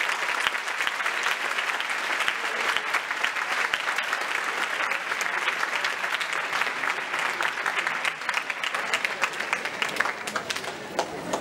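A large audience applauding, dense steady clapping that begins to thin out near the end.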